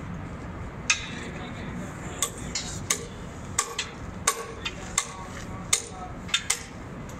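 Hammer blows on metal on a construction site: irregular sharp, ringing strikes, roughly two a second, over a steady background murmur.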